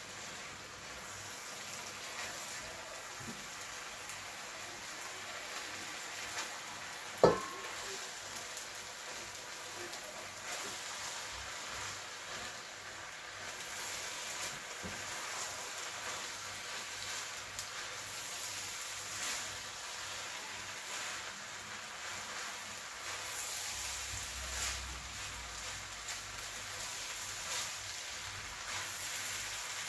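Fried rice with prawns and vegetables sizzling in a frying pan as it is stirred and turned with a spatula, with a steady hiss and soft scraping throughout. A single sharp, ringing clink of the utensil against the pan comes about seven seconds in.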